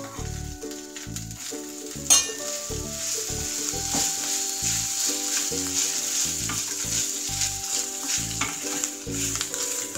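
Cooked rice sizzling in hot spiced oil in an aluminium pan as a wooden spatula stirs and turns it, with small scrapes and clicks against the pan and one sharp knock about two seconds in.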